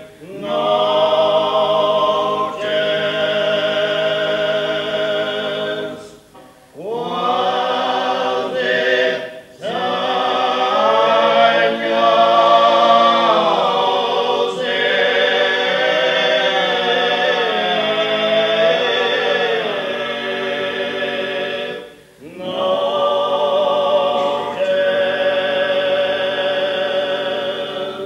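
Male vocal quartet singing a cappella in close harmony: long held chords in phrases, with short breaks between them about six, nine and a half and twenty-two seconds in.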